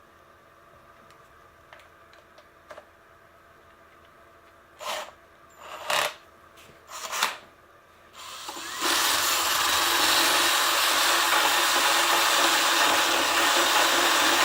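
Handheld power tool grinding down hardened foamed Gorilla Glue: three short bursts, then a steady run of several seconds that cuts off suddenly.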